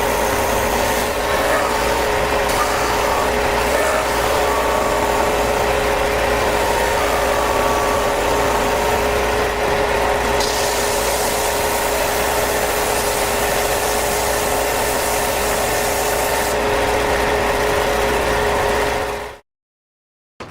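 A woodworking power tool's electric motor running steadily, with a high hiss that grows stronger for several seconds around the middle as it works the wood. It cuts off abruptly near the end.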